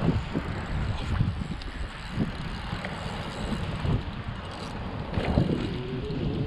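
Wind buffeting the microphone, making an uneven low rumble.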